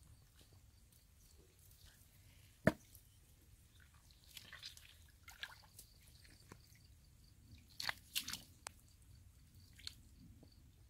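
Wet squelching and dripping of hands groping through soft mud and shallow muddy water, in scattered bursts, with one sharp knock about three seconds in.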